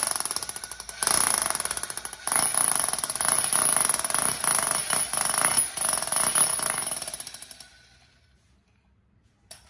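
Makita electric demolition (chisel) hammer with a 17 mm bit, running on 100 V mains, hammering in a rapid rattling stream over a steady high motor whine. The trigger is let off briefly twice in the first few seconds, then held for about five seconds before the motor winds down and stops.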